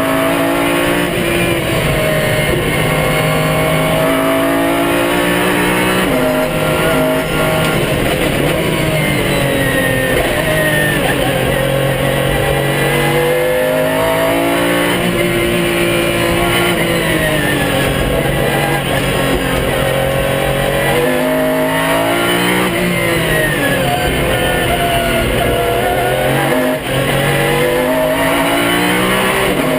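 Pagani Zonda R's AMG V12 running hard through the gears, its pitch climbing and dropping again and again, with the whine of its magnesium-cased Xtrac six-speed straight-cut sequential gearbox.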